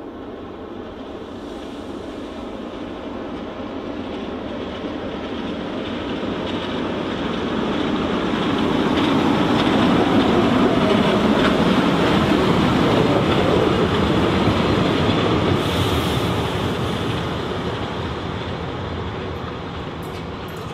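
A train passing by on the rails: the rolling noise of its wheels builds to a loud peak in the middle, then fades away.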